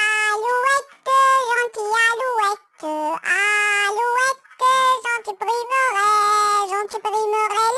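A high-pitched voice singing a children's song melody in short phrases, holding steady notes that step up and down, with brief breaks between phrases.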